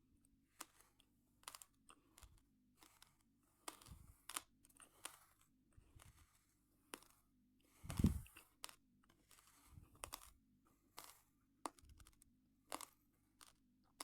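Raw, uncooked rice grains being crunched in the mouth: sharp, irregular crunches a few a second, the loudest about eight seconds in.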